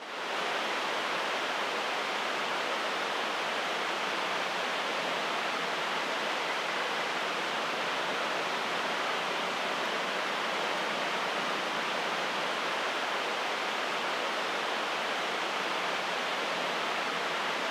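Steady, even rushing noise, with nothing rising or falling in it.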